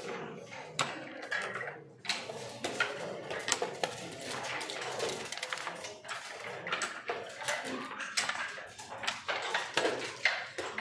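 Backgammon checkers and dice clicking and clattering on the board during quick moves, a run of sharp clicks and knocks.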